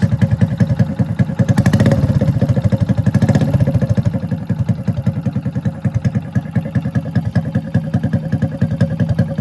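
Motorcycle engine running through a newly fitted custom welded bend-pipe silencer, with a fast, even exhaust beat. The throttle is blipped briefly twice, about two and three seconds in.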